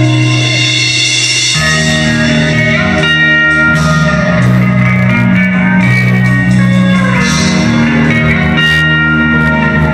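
Instrumental break of an indie rock song, led by guitar, holding sustained chords that change about one and a half seconds in and again around seven seconds.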